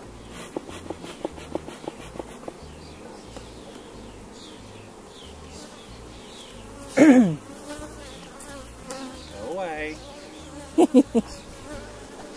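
Disturbed honeybees buzzing around an opened hive. Single bees fly close past the microphone: a loud buzz about seven seconds in drops sharply in pitch as one flies by, and three short loud buzzes come near the end. A run of light ticks is heard in the first couple of seconds.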